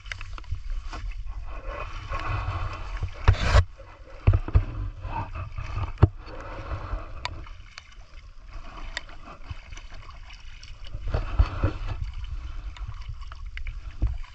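Feet wading through shin-deep muddy water, sloshing and splashing unevenly, over a steady low rumble. A few sharp thumps stand out, the loudest about three and a half seconds in.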